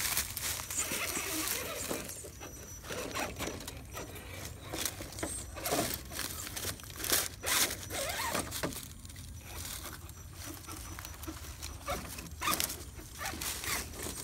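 Radio-controlled rock crawler's electric motor and gears whining in short, uneven bursts as it is throttled over rocks, with its tires and chassis scraping and clicking on the stone.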